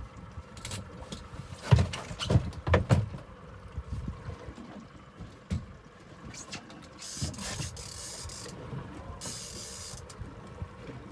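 A cluster of sharp knocks and clunks on a fishing boat's deck, then two separate bursts of hissing spray, each lasting about a second or more.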